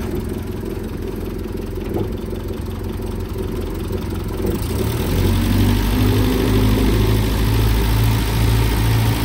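Land Rover Series 3's 2.25-litre four-cylinder petrol engine ticking over smoothly, running on fresh fuel after a couple of years standing. Its low rumble grows louder about halfway through.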